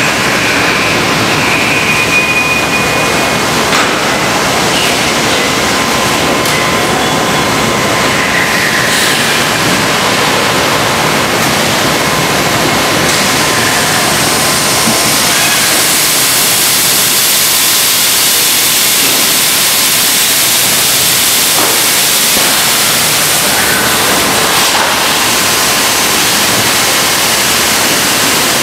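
Large industrial thermoforming machine running: a loud, steady mechanical rush with a few short hisses, growing hissier in the upper range about halfway through.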